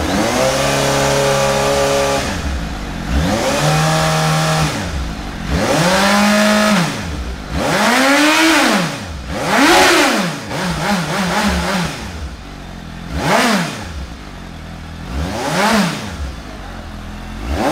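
Suzuki GSX-S750's inline-four engine free-revved through its stock exhaust. It opens with one held rev, then rises and falls in repeated throttle blips, with a quick run of about five short blips near the middle and single sharp blips toward the end, settling back to idle between.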